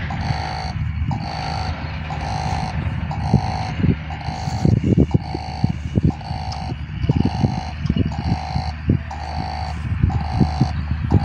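Level-crossing warning bell sounding, an electronic tone repeating about once a second while the crossing closes. Under it are a steady low rumble and irregular knocks.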